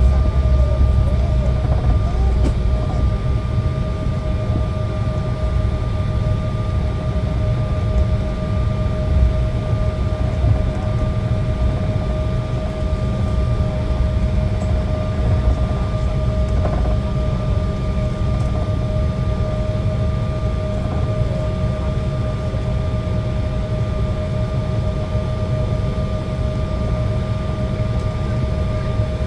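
Cabin noise inside an Embraer 175 taxiing after landing: a steady low rumble with a constant whine at one pitch.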